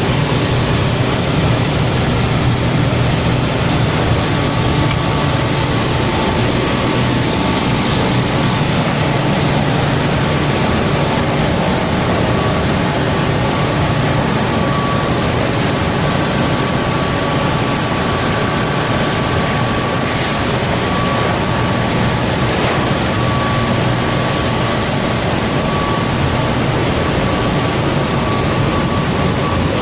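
Steady machinery noise: a continuous low hum with a thin high whine over it, unchanging throughout.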